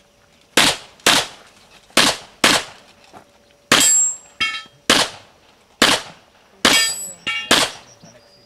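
Handgun shots fired at a steady pace on a practical shooting course, about nine in all, half a second to a second apart. A couple of hits leave steel targets ringing briefly.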